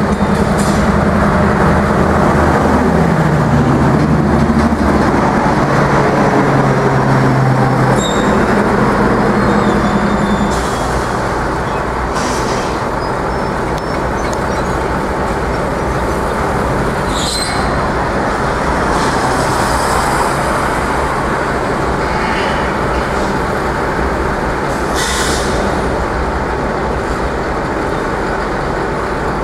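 Road traffic noise from passing vehicles on a busy road, with a heavy engine's steady pitched hum over it for the first ten seconds or so that changes pitch a couple of times before dropping out.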